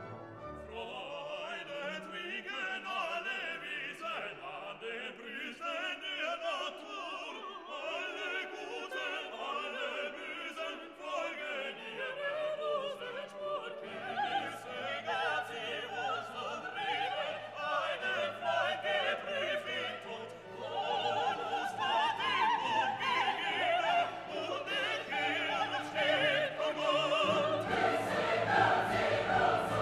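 Background music: a classical piece with operatic singing over an orchestra, growing fuller with deeper notes about halfway through and louder again near the end.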